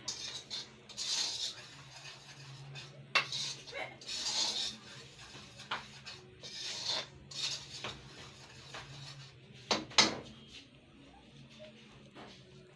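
Metal spatula scraping and stirring dry semolina around a thin kadhai in repeated swishing strokes, with a few sharp metal clinks against the pan, the loudest pair about ten seconds in. The semolina is being roasted and kept constantly moving so it doesn't burn on the bottom.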